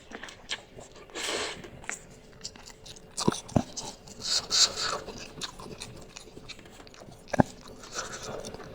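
Close-miked mouth sounds of a person eating spicy instant noodles: wet chewing with short hissy intakes and a few sharp clicks.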